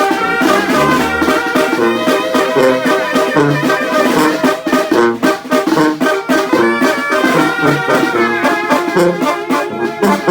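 Oaxacan-style brass band (banda) playing a tune: trumpets and trombones carrying the melody over low bass notes and a steady beat of percussion strokes.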